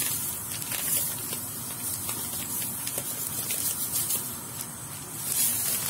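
Granulated sugar pouring from a plastic bag into a pot of peaches in water, a steady hiss with a few faint ticks, as the sugar for the syrup goes in.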